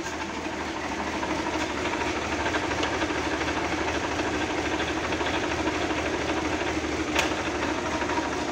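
Universal U-533 tractor's diesel engine running at a steady speed, a fast even clatter, with one sharp click near the end.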